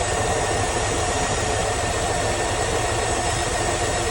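1996 Camaro SS's LT1 5.7-litre V8 idling steadily.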